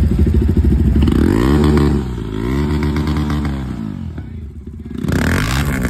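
Motorcycle engine revving at a standstill. The pitch rises and falls through several revs from about a second in, then a second sharp rev comes near the end.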